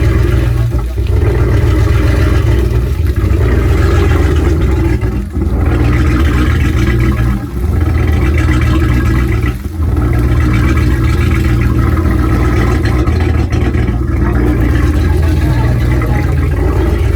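The 20-foot Shamrock's inboard 350 V8 engine running steadily, with a few brief dips in loudness.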